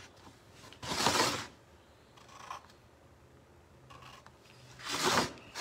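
Two short, loud breaths close to the microphone, about four seconds apart, each a brief rush of air.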